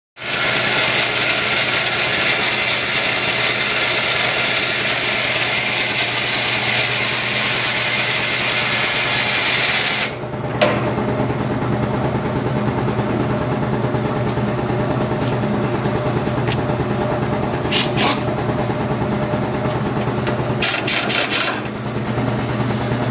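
Steady machine noise, a loud hiss for the first ten seconds or so, easing into a lower steady hum. Over it a handheld power drill runs in short bursts: once about two-thirds of the way in and in a quick rattling cluster near the end, as bolts are driven out of a steel motorcycle crate frame.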